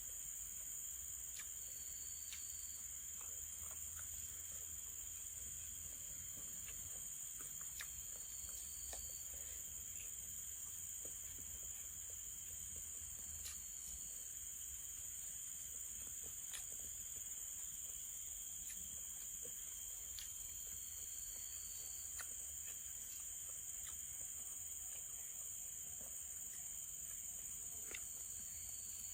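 Steady chorus of forest insects: a continuous high-pitched trill with a weaker, lower steady buzz beneath, and short extra chirps now and then. A few faint, scattered clicks.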